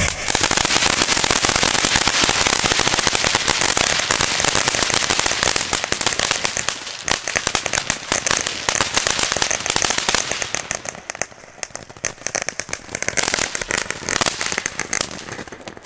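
Ground fountain fireworks spraying sparks with a dense, rapid crackle. The crackle thins out about eleven seconds in, picks up again, and dies away near the end.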